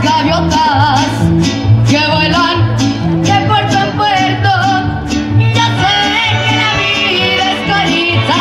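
A woman singing a ranchera with a mariachi band: her voice holds long, wavering notes over violins, a steady bass beat and strummed strings.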